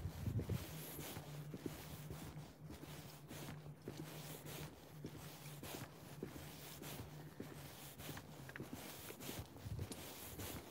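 Footsteps of a person walking along a wet tarmac lane, with rubbing and rustling from clothing and the handheld phone.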